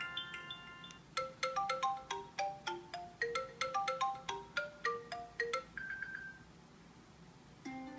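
iOS 7 ringtones playing on an iPad. The last notes of one tone fade in the first second. From about a second in, a new tone plays a quick melody of short, bright struck notes, about four a second, ending with a brief high note. The next tone begins just before the end.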